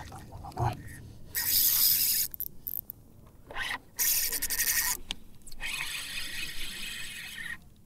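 Spinning fishing reel giving a rapid clicking whir in three bursts, the longest near the end.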